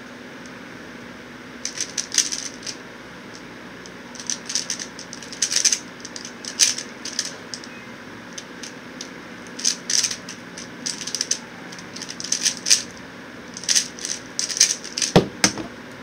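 A QiYi X-Man Tornado V1 3x3 speedcube being turned fast, its layers clacking in quick bursts with short pauses between them, then a single thump about fifteen seconds in as the cube is put down. Under it runs the steady hum of an electric fan.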